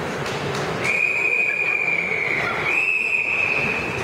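Swim referee's whistle sounding a long, steady blast that steps slightly higher in pitch partway through, over the general hum of the pool hall. This is typical of the long whistle that calls swimmers up onto the starting blocks before a race.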